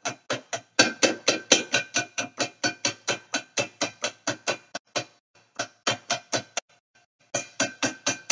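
Rapid, even clicking of a metal spoon striking a fine mesh strainer over a glass bowl, about six strikes a second with a slight metallic ring, as thick nut milk is worked through the mesh; the clicking pauses briefly twice.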